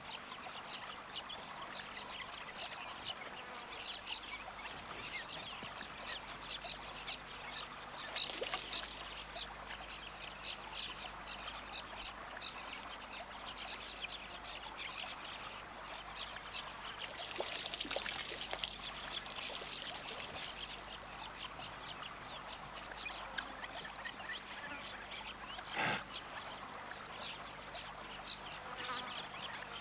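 Water trickling and splashing, with a dense background of small birds chirping. Broader splashes come about eight seconds in and again around eighteen seconds, and there is a single sharp tap a few seconds before the end.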